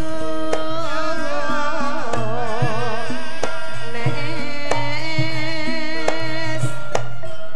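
Javanese gamelan music for a tayub dance: a woman sings a melody with a strong wavering vibrato over struck metallophone notes and regular low drum strokes. The voice enters about a second in and fades out near the end, while the ensemble plays on.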